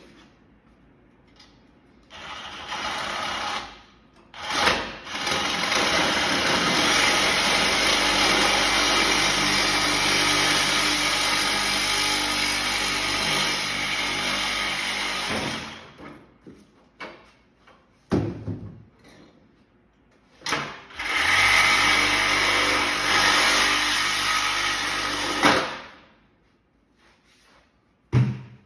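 A handheld power tool running in three bursts while an air-conditioning unit is taken apart: a short run about two seconds in, a long run of about ten seconds, then another of about five seconds. Sharp single knocks of metal fall between the runs.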